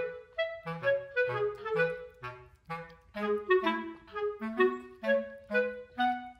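Background music: a tune of short, separate pitched notes moving over lower bass notes.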